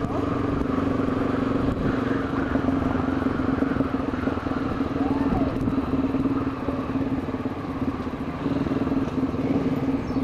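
Honda XRE 300's single-cylinder engine running steadily at low speed while riding, heard from a helmet-mounted camera.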